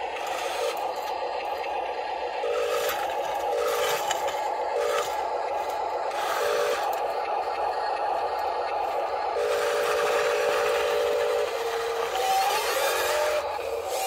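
Small electric motors of a Huina radio-controlled CAT 960L wheel loader model whine in short stops and starts as it drives its bucket into a pile of gravel, with gravel scraping and crunching. Near the end the whine glides up and down as the loader backs out and lifts the loaded bucket.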